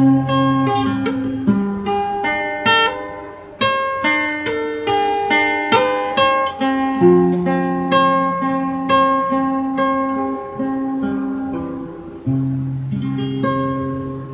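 Acoustic guitar played alone, picked notes and chords ringing out one after another over held bass notes, with no singing.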